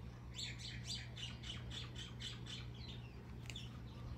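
A bird calling in a quick run of about a dozen short notes, about five a second, lasting about two and a half seconds, over a steady low hum.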